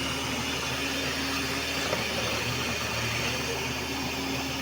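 Borewell drilling rig running steadily: a constant engine hum under an even hiss, with no change in pace.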